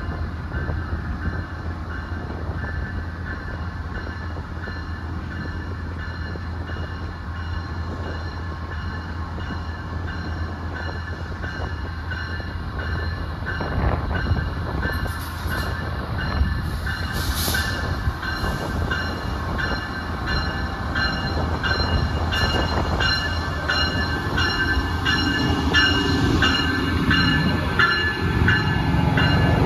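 Passenger train at a station platform: a steady low rumble with a few steady tones over it. A brief hiss comes a little past halfway, then a regular clicking sets in, and the sound grows louder toward the end.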